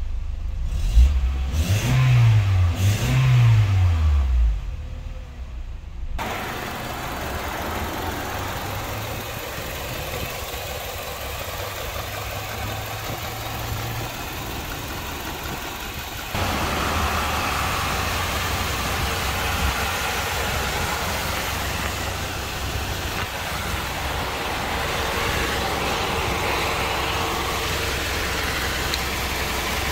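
2004 Honda CR-V's 2.4-litre four-cylinder engine blipped twice, each rev rising and falling within about a second, then settling to a steady idle. The idle abruptly grows louder about halfway through.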